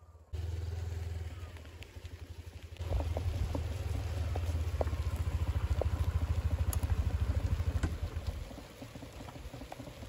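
Yamaha Aerox scooter's single-cylinder engine running: first as it rides over grass, then idling close by with an even pulsing beat, easing off near the end.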